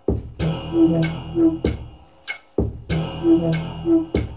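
A song's backing beat between sung lines: sharp drum hits with a short, low two-note riff, the same bar repeating about every two and a half seconds.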